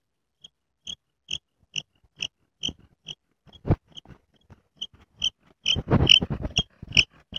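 Improvised willow bow drill being sawed back and forth: a short squeak and rub with each stroke of the bow, about two a second, coming faster and louder near the end.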